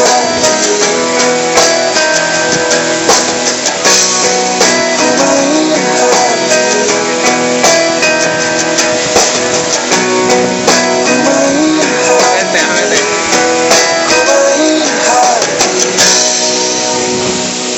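Background music led by strummed guitar. It stops about sixteen seconds in, giving way to a steady rushing noise.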